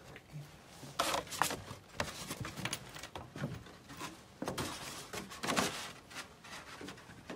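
Close-up rustling and scraping of a leather jacket and a cardboard box being handled next to the microphone, in several irregular bursts.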